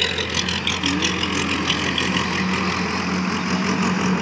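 Tractor diesel engine running steadily under load while pulling a rotavator through the field.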